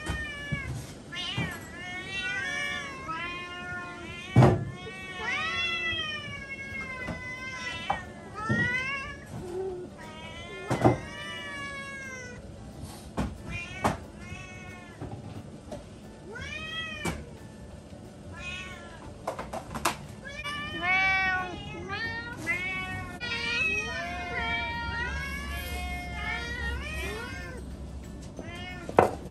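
Several hungry domestic cats meowing insistently, their rising-and-falling meows overlapping one another, while waiting to be fed breakfast. A few sharp knocks sound among the meows.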